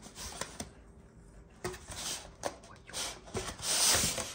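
A cardboard box being opened and handled by hand: scattered rustles, scrapes and light knocks, with a louder stretch of rubbing and scraping near the end.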